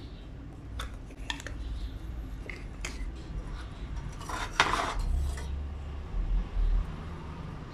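Small metal tools and parts clinking on a workbench: a few sharp clicks, then a longer clattering rattle about halfway through, over a low rumble.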